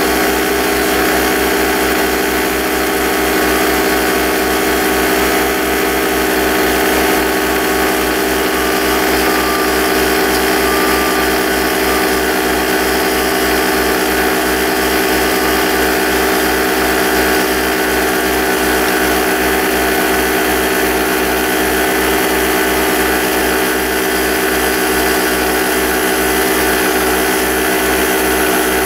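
Air compressor for a pneumatic nail gun running continuously with a steady drone and a fast even pulsing underneath, the sound of it filling its tank.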